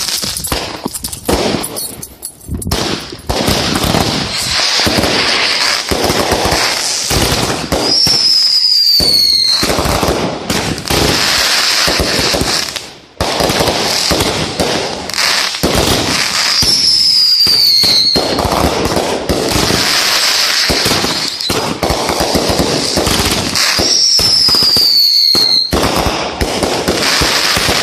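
Two 500-gram consumer firework cakes firing together: a continuous run of shots and crackling bursts. A high whistle falls in pitch three times, about every eight seconds.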